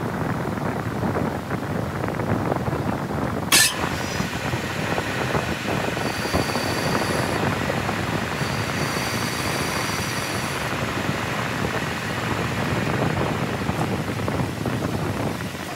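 Metal lathe running steadily while turning an aluminium piston blank. A sharp click sounds about three and a half seconds in, and a faint high-pitched whine comes in twice, around six and nine seconds in.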